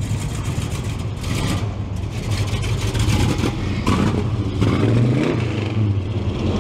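Classic car engines rumbling loudly through their exhausts as they pull away, with one engine rising and then falling in pitch about four seconds in.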